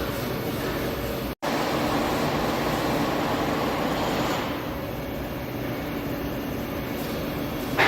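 McClean Anderson Spider CNC filament winder dry-running a program: the carriage drive runs along its overhead rack and pinion with a steady mechanical whir and hum. The sound cuts out for an instant about a second and a half in, and there is a short louder rush near the end.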